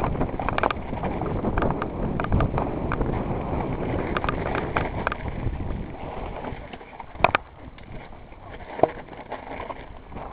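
Mountain bike clattering and rattling over a rocky trail, tyres crunching on loose stone with many sharp knocks from the frame and parts. After about six seconds it quietens to a softer roll over dirt, with a couple of single sharp knocks.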